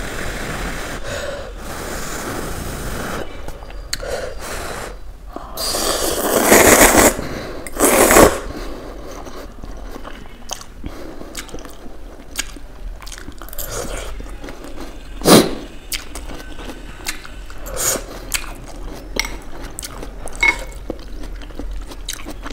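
Close-miked eating of soupy Maggi instant noodles: two long, loud slurps about six and eight seconds in, with chewing, and a metal fork clicking and scraping against a glass bowl.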